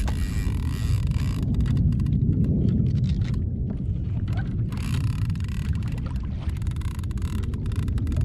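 Steady low wind rumble on the microphone over a kayak at sea, with stretches of water hiss and washing, the loudest about five to six and a half seconds in.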